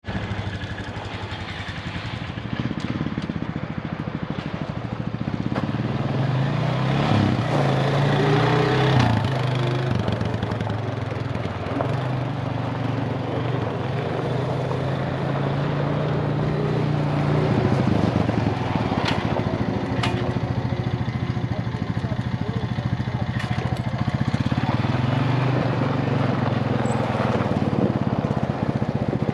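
Honda ATV engine running as the quad is ridden, its pitch climbing and falling several times with the throttle. A couple of sharp clicks come a little past the middle.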